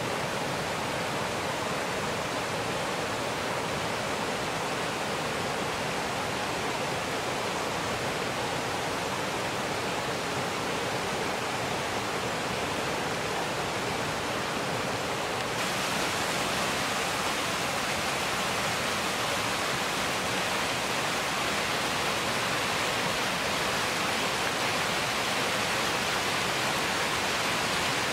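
Forest creek rushing and splashing over rocks and logs in small cascades, a steady rush of water. A little past halfway it steps up, brighter and a little louder, as the water pours down a rocky cascade.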